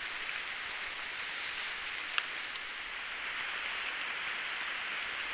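Light rain, a steady even hiss, with one faint tick about two seconds in.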